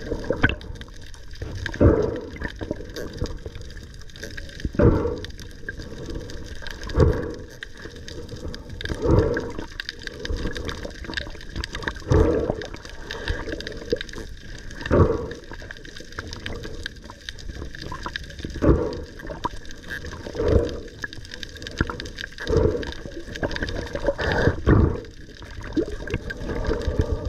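Muffled underwater water noise picked up by a camera in its waterproof housing, with a short swell of noise every two to three seconds.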